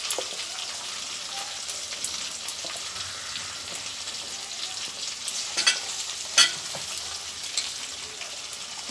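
Chopped tomato and ginger-garlic-onion paste sizzling in hot oil in a pan while being stirred, with scattered small scrapes and two louder knocks a little past halfway.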